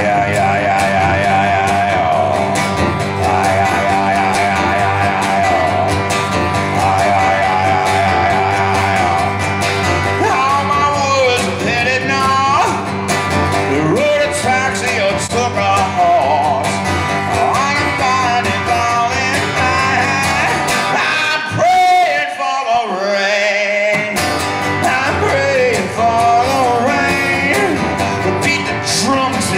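Live solo rock song on strummed acoustic guitar with wordless singing, the voice sliding and bending between notes. About twenty-two seconds in, the low strumming drops out for a couple of seconds, then picks up again.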